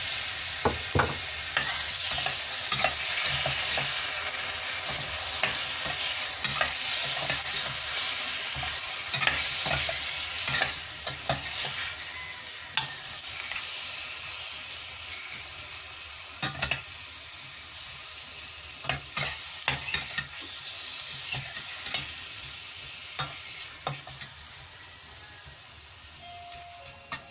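Raw chicken pieces sizzling in hot oil with garlic, ginger and onion in a stainless steel pot, stirred with a metal ladle that clicks and scrapes against the pot now and then. The sizzle slowly dies down over the stretch.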